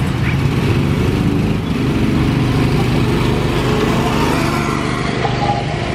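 Small petrol go-kart engines running, a steady low hum.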